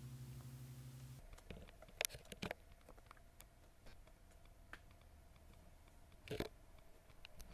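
The last acoustic guitar chord ringing out faintly, cut off about a second in. After that, faint scattered clicks and taps, a few of them sharper.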